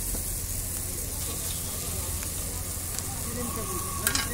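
Hot oil sizzling steadily on a gas-fired flat iron griddle as cooking oil is poured on, over a low steady hum. A sharp tap about four seconds in, as an egg is cracked to be fried.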